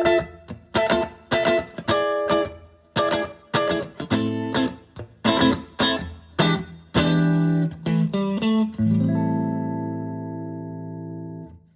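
Tokai TST95 Strat-style electric guitar played through a Koch Jupiter Jnr. amp with a fairly clean tone. It plays a run of sharp, rhythmic chord strums, then lets one chord ring out for almost three seconds, slowly fading before it is cut off near the end.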